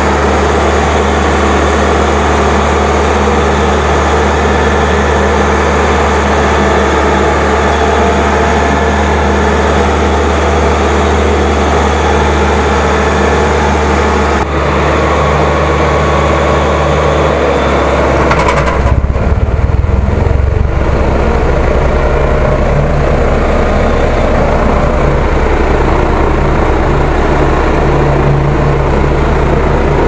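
Case 1107 EX single-drum roller's diesel engine running steadily under way, heard close up from on board. About two-thirds of the way through, the hiss thins out and the low hum turns into a rapid pulsing rumble.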